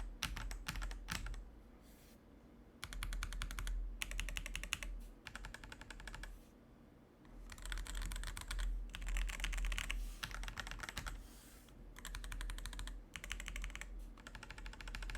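Typing on an Akko 5075S hot-swap mechanical keyboard fitted with linear Akko switches: fast runs of keystrokes, keycaps bottoming out, in bursts of a second or few with short pauses between them.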